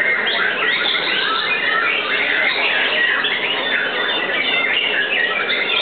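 Several white-rumped shamas (murai batu) singing at once: a dense, unbroken tangle of quick rising and falling whistled phrases.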